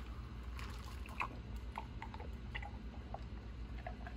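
Faint, scattered light clicks and taps of small objects being handled, over a steady low hum.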